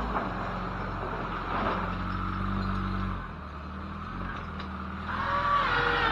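Engine of a plow-equipped SUV running steadily as it drives forward and pushes snow into a bank. It eases off after about three seconds, then revs up again near the end.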